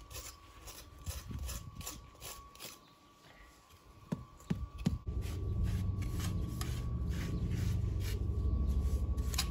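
Repeated scraping strokes of a hand tool working stonework, about three to four a second. About halfway through, a low steady machine rumble starts and becomes the loudest sound.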